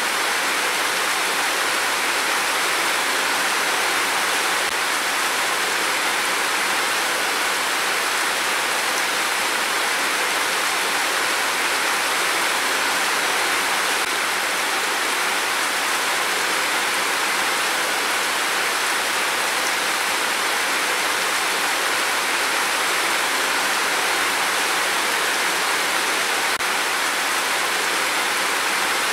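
Heavy rain pouring down, a steady even hiss with no thunder.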